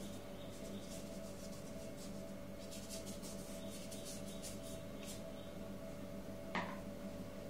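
Paintbrush brushing and dabbing on watercolour paper in short, faint scratchy strokes over a steady background hum, then a single sharp click near the end.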